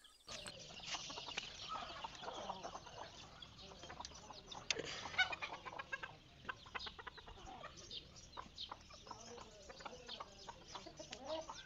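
Chickens clucking faintly, with scattered light clicks and rustles.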